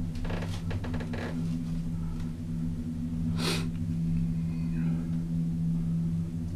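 Gondola lift cabin in motion: a steady low hum, heard from inside the cabin, with a brief rushing noise about halfway through.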